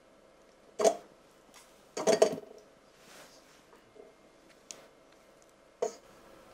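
A spatula knocking and scraping against a small glass bowl and the stainless steel mixing bowl of a stand mixer as butter is scraped in: a short clink about a second in, a cluster of clinks and scrapes around two seconds in, and one more near the end.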